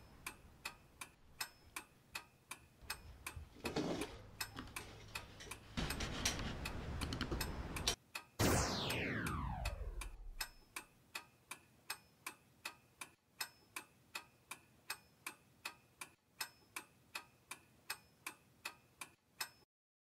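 A clock ticking steadily, about two ticks a second, stopping just before the end. Partway through, a few seconds of rushing noise lead into a loud whoosh that falls in pitch over about two seconds, the loudest sound here.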